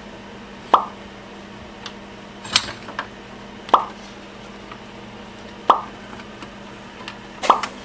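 Sharp metallic clicks and knocks, five of them spaced a second or two apart, most with a short ring, as the hard drive and its metal bracket are fitted back into the digital video recorder's sheet-steel case during reassembly. A steady low hum runs underneath.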